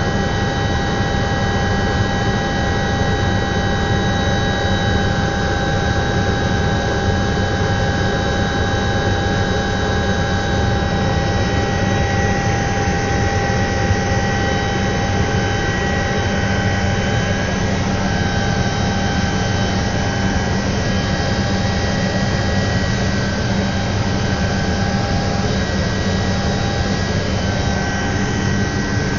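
Cabin noise of an Alouette III (IAR-316B) helicopter in cruising flight: the Turbomeca Artouste turboshaft and rotor drive running steadily, several high whining tones over a low rotor rumble.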